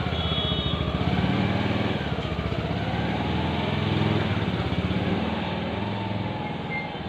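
Small motorcycle engine running as the loaded bike pulls away through a gate, the sound fading toward the end as it moves off.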